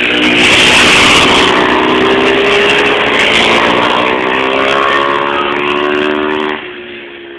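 Ice speedway motorcycles racing around the track, their single-cylinder 500 cc engines running at high revs with several engine notes overlapping and slowly rising in pitch. The sound drops off sharply about six and a half seconds in, leaving a fainter engine note.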